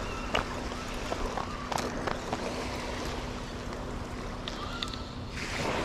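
Spinning reel being cranked to wind in line, a steady low whir with scattered small ticks, over the wash of surf. A wave rushes up the beach near the end.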